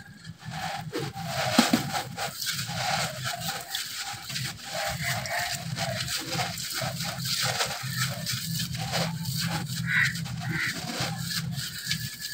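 Dry, crumbly red dirt being squeezed and crushed by hand, a dense run of gritty crackling and crunching over a low steady hum.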